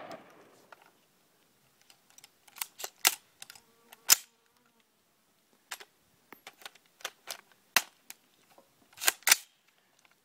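A dozen or so sharp, short clicks and cracks at irregular intervals, with a louder pair near the end, all much quieter than the AR-15 shots just before and after.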